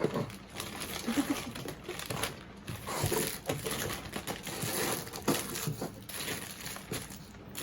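Plastic crinkling and rustling in irregular crackles as fidget toys and their packaging are handled.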